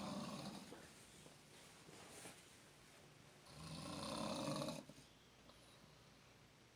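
Slow, regular snoring. One snore fades just after the start, and another full snore, lasting about a second and a half, comes about three and a half seconds in.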